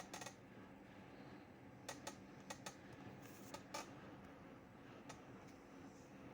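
Faint, scattered clicks and taps, about eight spread irregularly over a few seconds, over a low steady hum.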